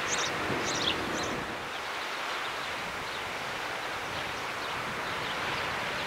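Steady wind and outdoor noise on the microphone, with a few quick, high bird chirps in the first second and a half.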